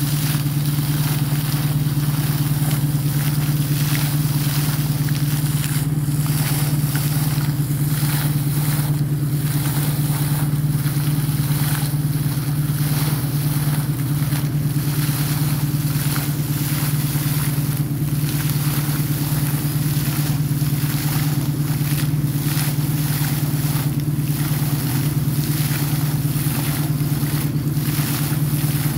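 Air compressor running steadily with a deep, constant hum while water gushes out of a borewell's blue PVC casing pipe and splashes down, in uneven surges. The sound of a borewell being flushed with compressed air.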